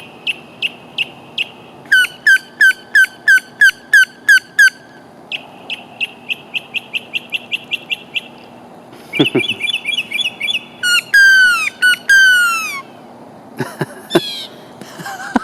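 Northern mockingbird singing, repeating each phrase several times before switching to the next. It runs through about five different phrases: short high chips, loud sweeping notes, a rapid run of notes, a quick buzzy trill, and falling whistles.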